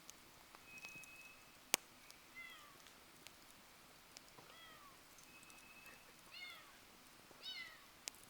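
Wood fire crackling with scattered sharp pops, the loudest a little under two seconds in. Over it, an animal gives four short calls that fall in pitch, and there are two thin steady whistles.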